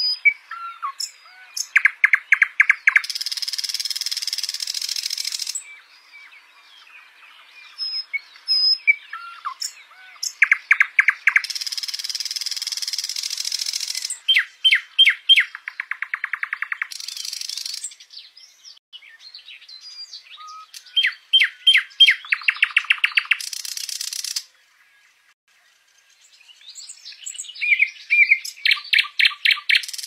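Nightingale singing: loud phrases of rapidly repeated notes, each running into a dense buzzing rattle about two seconds long, with short pauses between phrases.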